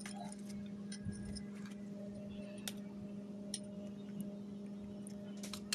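Sparse, faint clicks of a metal spoon tapping and prying at an eggshell over a bowl, with a steady low hum beneath.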